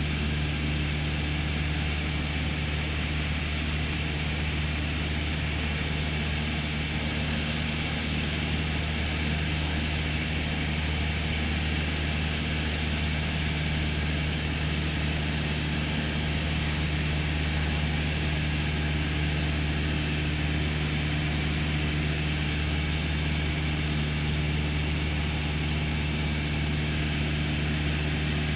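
Piston engine and propeller of a single-engine light aircraft in flight, heard from inside the cabin: a steady, unchanging drone with a low hum and rushing air noise.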